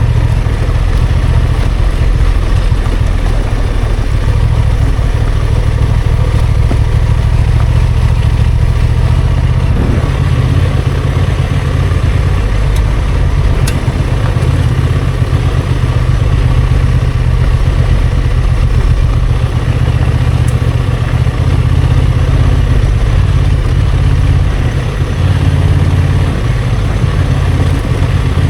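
Honda XL750 Transalp's parallel-twin engine running steadily at low revs through the whole stretch, its level and pitch shifting a little with the throttle, and a single brief click about halfway through.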